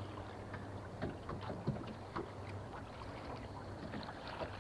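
Quiet ambience of a small fishing boat on choppy water: small waves lapping against the hull under a low steady hum, with a few faint ticks.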